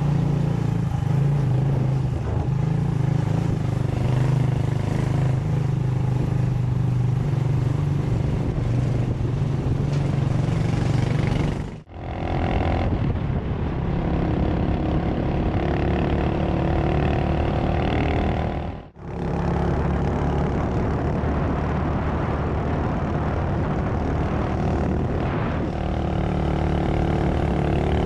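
Motorcycle engine running steadily while riding, with wind noise over it. The sound drops out for a moment twice, about twelve and nineteen seconds in.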